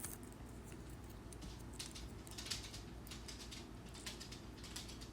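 Faint crinkly rustling and light ticks of adhesive tape being handled and wrapped around a small device.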